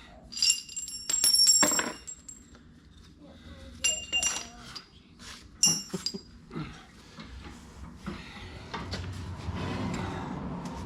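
Metal tools and parts clinking and clanking against one another, each strike ringing briefly: a cluster of strikes in the first two seconds, more around four and six seconds in, then shuffling handling noise.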